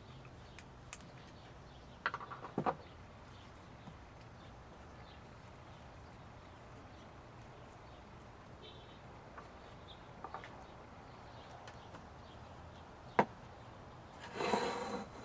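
A few scattered light clicks and knocks over a low steady hum: a small cluster about two seconds in, one sharp click near the end, then a brief rustle.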